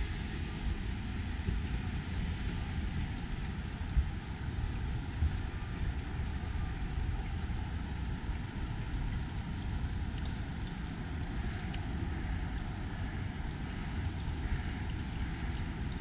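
Low, fluctuating rumble of wind buffeting the microphone, with a single sharp knock about four seconds in.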